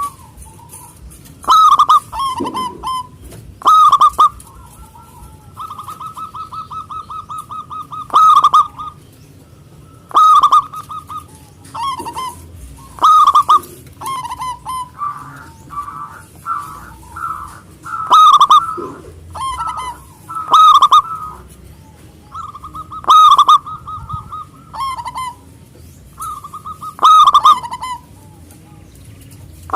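Zebra dove (perkutut) cooing repeatedly: loud, rolling coo phrases come about every two to three seconds, with rapid purring trills between them.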